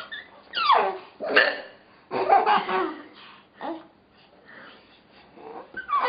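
A woman hiccuping several times, each hiccup short and sudden with a squeak of voice that drops in pitch, and a baby laughing in between.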